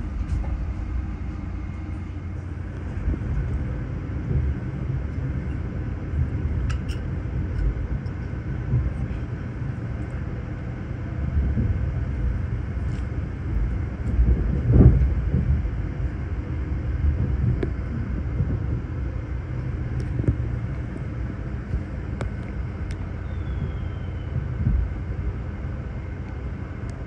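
Inside a V set intercity train carriage: a steady low rumble with scattered small clicks and knocks, swelling briefly about halfway through.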